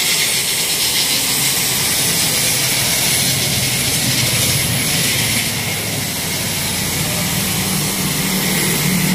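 Loud, steady spraying hiss as a motorcycle drive chain is sprayed clean, over a low steady hum; the hiss stops at the very end.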